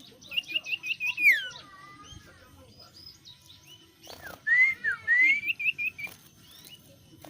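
A small songbird, the bird called burung cipu padang, singing two clear whistled phrases. The first, about a second in, is a quick run of short rising notes ending in a long falling slur. The second, a few seconds later, is another rapid series of rising notes. Fainter chirps sound in between.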